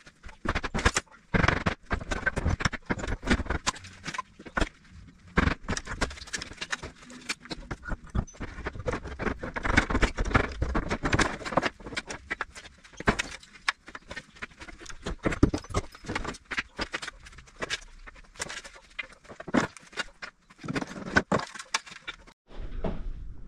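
Hammer and pry bar knocking and clattering irregularly in wall demolition work, in quick runs of sharp blows with short pauses between.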